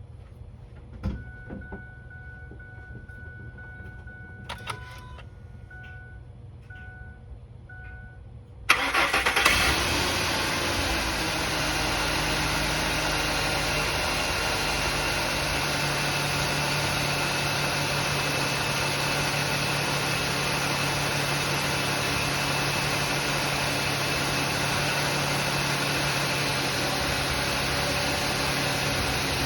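2005 Ford F-150 engine started after an oil change. A few clicks and a repeating dashboard chime come first; about nine seconds in, the engine catches with a brief rev and then settles into a steady idle.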